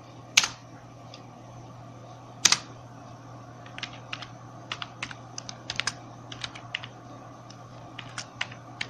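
Computer keyboard typing: two sharp, louder keystrokes about two seconds apart, then a quicker run of lighter key presses from about four seconds in.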